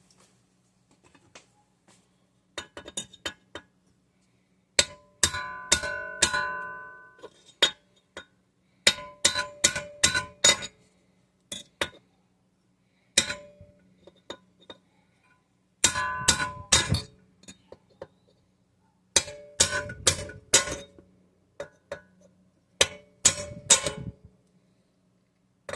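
Hammer tapping a metal drift in short groups of quick, ringing strikes with pauses between, driving a piece of the governor assembly into the governor-shaft hole of a 196cc small engine's crankcase to plug it.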